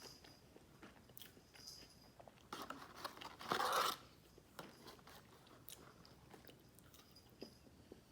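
A person chewing and biting fast food close to the microphone, with small wet clicks throughout and one louder noisy bite or crunch about three and a half seconds in.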